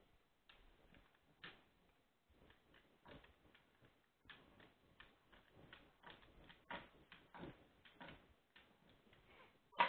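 Small wooden rolling pin rolled back and forth over crescent roll dough on a wooden board, pressing the dough's perforations closed: faint, irregular clicks and taps, with a sharper knock near the end.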